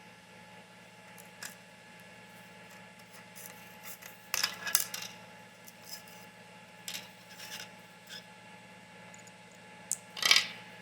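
Short clicks and scrapes of small hard parts being handled, over a faint steady hum. A cluster of scraping comes about four to five seconds in, and the loudest scrape comes near the end.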